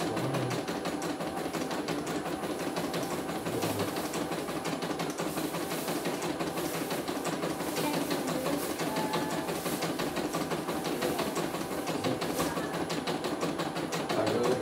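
Single-needle computerized embroidery machine stitching out a design, the needle running at a rapid, steady rate.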